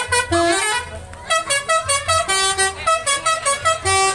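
Basuri telolet musical horn on a Dewi Sri bus playing a quick melody of short, stepping notes, a few per second, with a brief pause about a second in.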